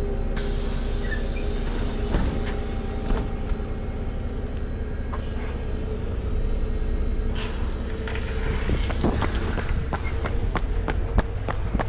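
Bus engine idling with a steady drone, with two bursts of air hiss, one shortly after the start and one about seven seconds in. From about eight seconds in, a runner's footsteps come in quickly, about three a second.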